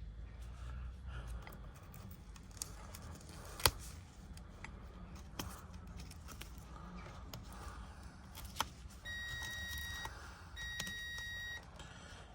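Scattered small clicks and cracks of tools prying at the tablet's shattered LCD glass, one sharp crack standing out a little under four seconds in. Near the end come two steady electronic beeps, each about a second long, a short gap apart.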